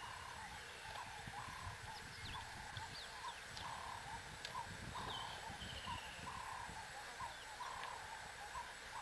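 Bush ambience: an unseen animal repeats a short call about twice a second, with faint high chirps above it and a low, uneven noise underneath.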